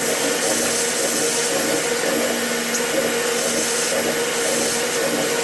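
CNC vertical milling machine running a cut: a steady motor drone with a constant high whine, unchanging throughout.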